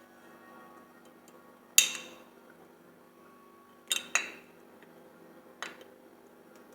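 Kitchen utensils clinking: four sharp knocks with a brief ring after each, the loudest about two seconds in, and two close together about four seconds in.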